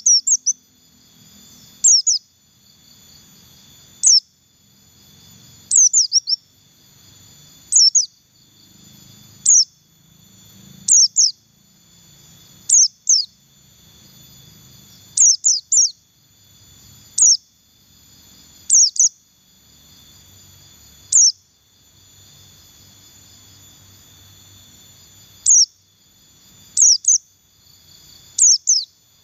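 White-eye (pleci buxtoni) calling: sharp, very high whistled notes that sweep downward, given singly or two or three in quick succession about every one to two seconds. A steady high insect buzz runs underneath.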